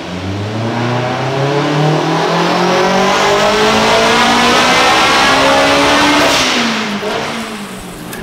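Turbocharged Honda S2000 four-cylinder engine making a pull on a hub dyno. The revs climb steadily for about six seconds, then drop away as the throttle closes.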